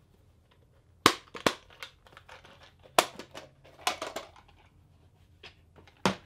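Plastic lure packaging being handled: several sharp plastic clicks and snaps, with crinkling and rustling between them.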